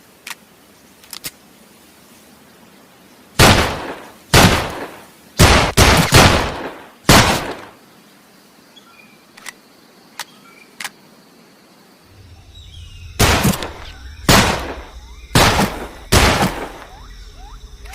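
Nambu Type 14 8mm pistol fired single shots, each a sharp crack with a short ringing tail. A run of about six shots comes a few seconds in, then four more near the end, with faint clicks in the pauses between.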